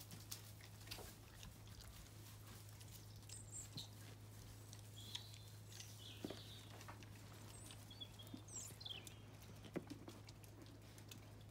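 Near silence: quiet outdoor farmyard ambience with a low steady hum, scattered light knocks and a few faint high chirps of small birds.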